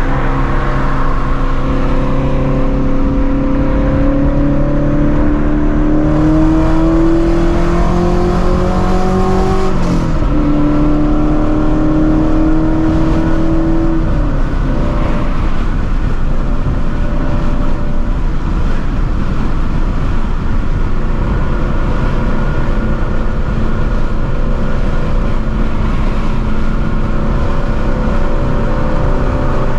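Straight-piped Shelby GT350's 5.2-litre flat-plane-crank V8, heard from inside the car under acceleration. Its note climbs steadily for about ten seconds and drops sharply at an upshift, then climbs again for a few seconds and drops. After that it settles into a steady highway cruise with road noise.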